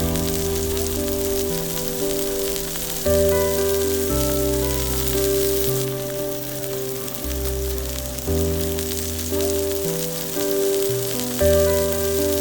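Background music of held chords over a bass line, with a steady crackling sizzle underneath from beef grilling on a hot stone slab.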